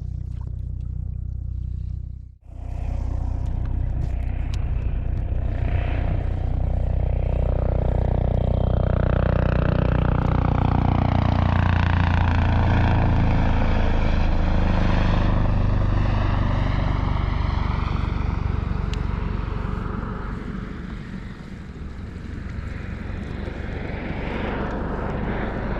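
Helicopter flying low overhead, its rotor and engine sound steady and loud, swelling to a peak near the middle and easing off toward the end.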